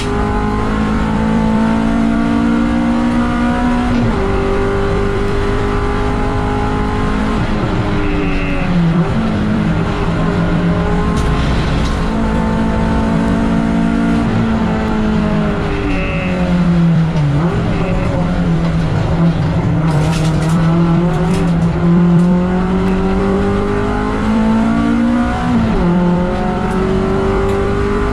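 MG ZR 170 race car's engine running hard, the note climbing through each gear and dropping back at every upshift, with a downshift and throttle blips under braking about midway. Tyres squeal briefly a couple of times.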